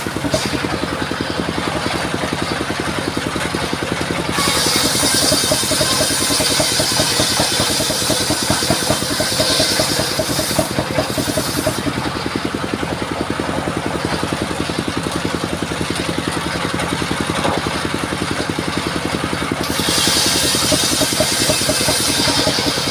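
Engine-driven mobile circular sawmill running steadily, its blade cutting through a sengon log with a high hiss from about four seconds in to about eleven seconds, and again from about twenty seconds in, the engine running on its own between cuts.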